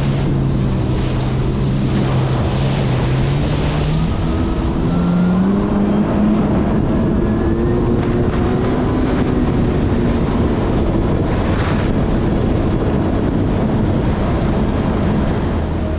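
Kawasaki Ultra 310 LX-S jet ski's supercharged four-cylinder engine running at speed over the hiss of water and wind, its pitch rising about four to five seconds in and then holding higher.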